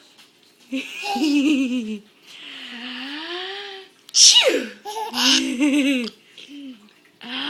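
Baby, nearly five months old, laughing in bouts of pulsing giggles and a long rising-and-falling squeal. A woman sneezes sharply about four seconds in, and the baby laughs again right after.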